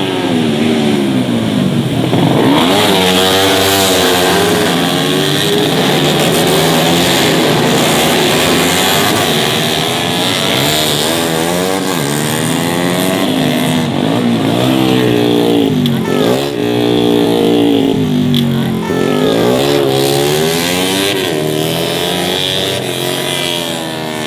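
Several tuned 150 cc four-stroke underbone race motorcycles running hard together, their engine notes climbing through the gears and dropping sharply again and again as they pass.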